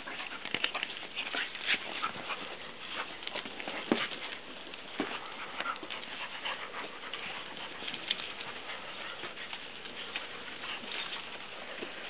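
Dogs and puppies play-fighting: small dog noises amid scuffling on the grass, a dense run of short, sharp sounds with no steady tone.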